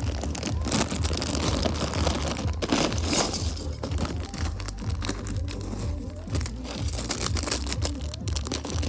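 Music playing in the background over the crinkling of a plastic LEGO parts bag and small plastic clicks of bricks being handled.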